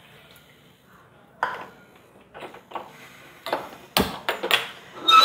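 Metal cookware clattering on a gas stove: scattered knocks and clinks of a saucepan and utensils, the loudest knock about four seconds in, and a brief metallic ring near the end.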